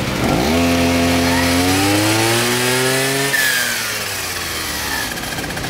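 Mitsu Heavy Duty T200 brush cutter's two-stroke engine revved from idle, its pitch climbing steadily for about three seconds, then dropping back to idle.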